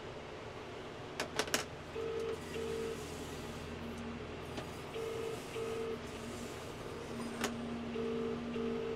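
British-style telephone ringing tone from a phone as a call is placed: three double rings ('brr-brr'), about three seconds apart, starting about two seconds in. Under it a tractor engine runs steadily, and a few sharp knocks come about a second and a half in.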